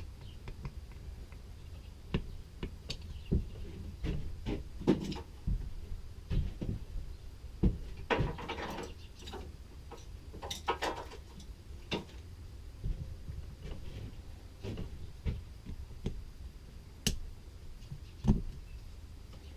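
Scattered clicks, taps and short scrapes of small metal tools and carburetor parts being handled during disassembly of an Edelbrock carburetor, over a steady low hum. There is a longer rattling scrape about eight seconds in and again near eleven seconds.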